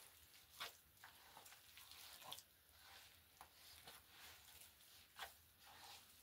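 Near silence, with a few faint, scattered clicks and rustles.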